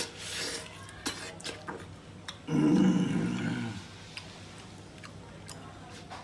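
Scattered small clicks, then about two and a half seconds in a loud, low vocal sound lasting just over a second and falling slightly in pitch, like a grunt or growl from a person.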